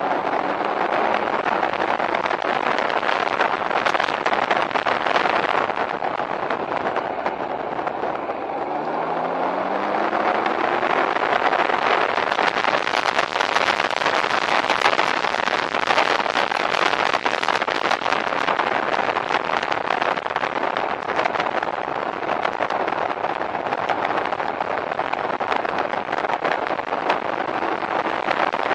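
Can-Am Ryker three-wheeler's engine running under way, with wind and road noise rushing over the microphone. About nine seconds in, the engine note rises as it accelerates.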